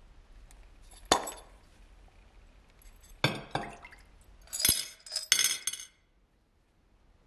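Sharp clinks of small hard objects knocking together: one about a second in, two just after three seconds, then a quick run of three or four near five seconds.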